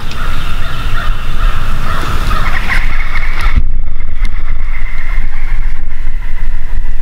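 Wind buffeting the camera microphone in a heavy, loud rumble, with a higher hiss over it that drops away about three and a half seconds in.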